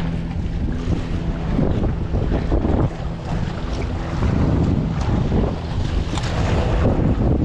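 Steady wind buffeting the microphone, with waves washing against granite jetty rocks.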